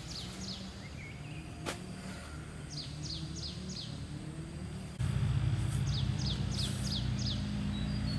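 A songbird calling in short series of four or five quick, high, downward-sliding notes, twice, over a low steady hum that gets louder about five seconds in.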